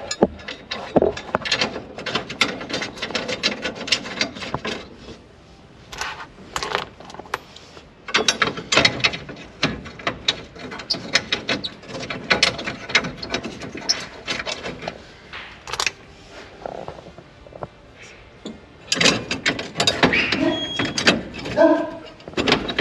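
Hand tools and metal dash parts clicking, knocking and rattling in quick, irregular runs as a plate is fitted and screwed into a truck's dashboard.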